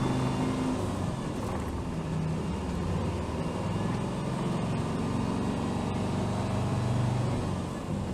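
Hino Rainbow HR city bus (BDG-HR7JPBE) driving, its diesel engine note easing off about a second in and pulling again from about four seconds, then easing near the end.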